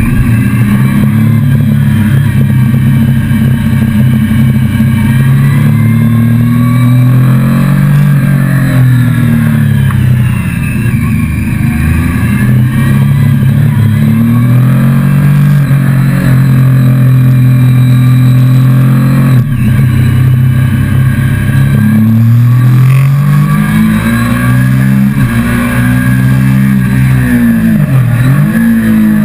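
Motorcycle engine heard close up from the rider's own bike, running loud and steady, its revs rising and dropping several times with throttle and gear changes as it picks up speed.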